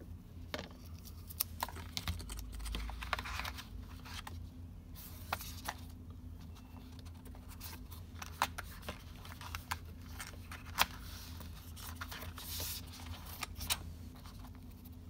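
Handling sounds of a smartwatch's cardboard box and its molded insert: scattered light clicks and taps with a few brief rustling scrapes as the insert is lifted out and set back down, over a steady low hum.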